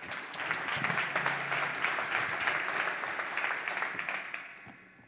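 Audience applauding a speaker onto the stage, the clapping dying away about four seconds in.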